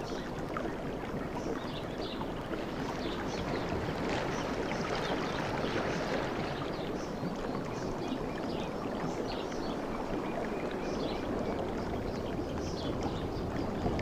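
Sea waves washing onto a beach: a steady rushing of surf with the fizz of breaking foam, swelling slightly about four seconds in.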